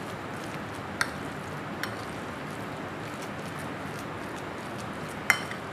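Metal spoon stirring raw chicken mince in a ceramic bowl, with a soft steady background hiss and three sharp clinks of the spoon against the bowl, about a second in, just under two seconds in, and loudest near the end.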